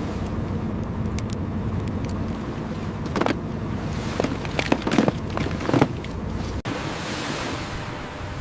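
Crab boat's engine running steadily under sea and wind noise, with several sharp knocks and clatters on deck; the sound changes abruptly about two-thirds of the way through.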